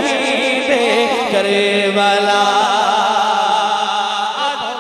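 A man's solo voice singing an Urdu manqabat (devotional poem for Imam Hussain) through a stage microphone, drawing out one long melismatic note that wavers up and down, then fades near the end.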